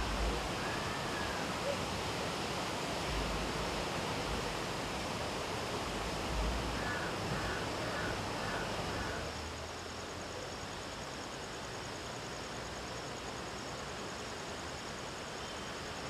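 Steady outdoor rushing ambience of wind or distant water, with a few short bird chirps in the first half and low buffets of wind on the microphone. About nine seconds in it turns slightly quieter and thinner.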